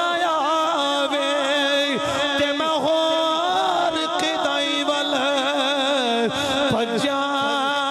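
A man's voice chanting a melody through a microphone and sound system, in long held notes that waver and bend in pitch.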